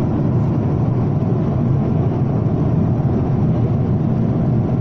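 Steady cabin noise of a jet airliner in flight: an even, low rumble of engine and air noise.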